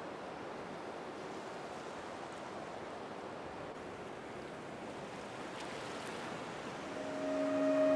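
A steady, even rushing noise, like surf or rain. About seven seconds in, a sustained low tone with overtones swells in and grows louder as background music begins.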